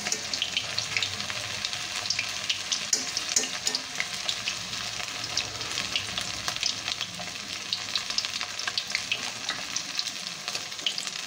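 Battered chicken pakoras just dropped into hot oil, deep-frying in a kadai: a steady sizzle full of fine, rapid crackling and popping.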